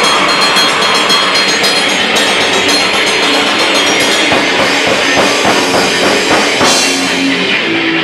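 Live punk rock band playing loudly: a dense wall of distorted electric guitar over a pounding drum kit, with the drum beat coming through more plainly in the second half.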